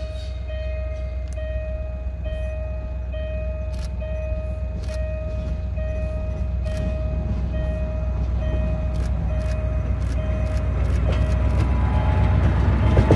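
DB Class 290 diesel-hydraulic shunting locomotive approaching, its diesel engine running with a low sound that grows steadily louder as it nears. Over it a level-crossing warning signal rings in an even pulse about twice a second.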